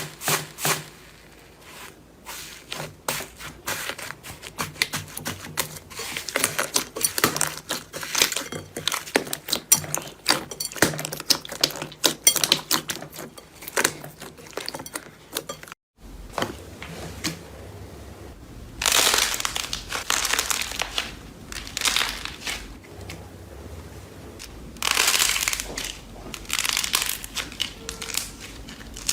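Slime being squeezed and pressed by hand. It gives a dense run of sharp crackles and pops, then after a break about halfway through, longer squishy swells of crackling noise.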